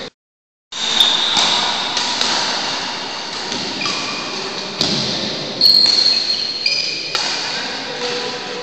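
Badminton rally: rackets striking the shuttlecock in sharp, irregular hits that echo through a large hall, with short high squeaks between them. The sound drops out completely for about half a second just after the start.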